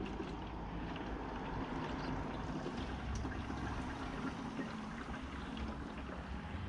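Used engine oil pouring in a steady stream into a container.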